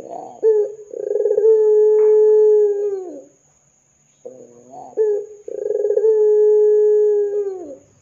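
Domestic ringneck dove (puter) cooing twice. Each call opens with a couple of short rising notes, then a long held coo of about two seconds that drops in pitch at the end. The second call starts about four seconds in.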